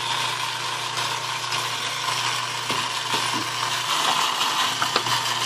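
Myford ML7 metal lathe running with its chuck spinning freely on the belt drive: a steady low hum under an even whirring hiss, with a few faint ticks.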